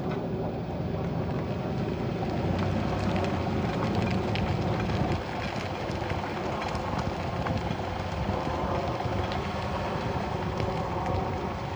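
Mitsubishi Outlander pulling away at low engine speed: engine and drivetrain running with an extraneous noise that shows only between about 800 and 1100 rpm. It is a little louder for a few seconds, easing about five seconds in.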